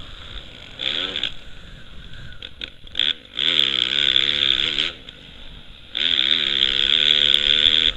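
Motocross bike engine revving hard under racing throttle, its pitch climbing and dipping as the rider opens and shuts the throttle. It comes in loud bursts: briefly about a second in, again from about three and a half to five seconds, and from six seconds on, quieter in between.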